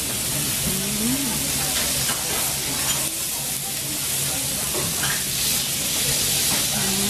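Kobe beef steak sizzling steadily on a hot steel teppanyaki griddle as it is cut and pushed about with a knife and carving fork.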